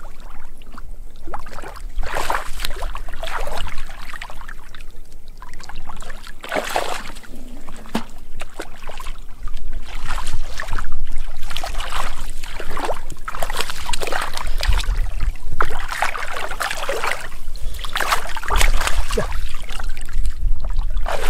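Shallow muddy water sloshing and splashing in irregular swishes as a person wades barefoot and gropes through it by hand.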